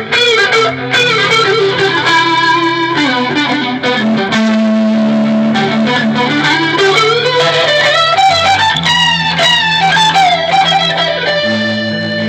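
Electric guitar played through a Mesa Boogie Triple Rectifier amp, improvising single-note lead lines that slide and bend up and down over held low notes.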